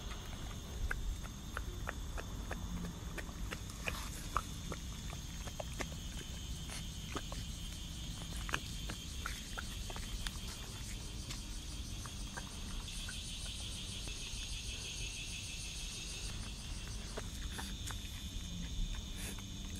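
A dog tearing and chewing grass, a scatter of short crisp crunches and clicks that thin out after about ten seconds. Under it a steady high chirring of insects, with a pulsing stretch a little past the middle.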